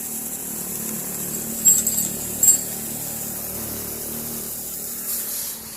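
A steady mechanical hum with a strong hiss, and two sharp knocks, one a little before two seconds in and another about a second later.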